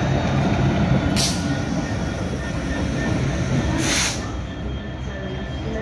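Class 66 diesel locomotive's EMD two-stroke V12 engine running with a steady low drone as the locomotive passes slowly and draws away, growing a little quieter after about four seconds. Two short hisses break in, about a second in and again near four seconds.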